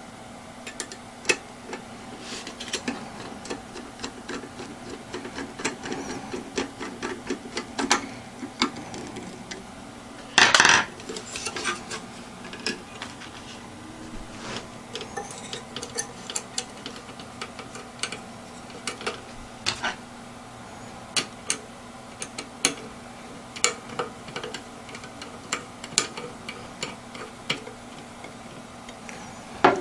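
Irregular small clicks and taps of hard parts being handled, with a louder clatter about ten seconds in, over a faint steady hum.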